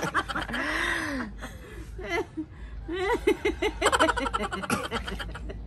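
Two women laughing in several bursts, the loudest at the start and again around three to four seconds in.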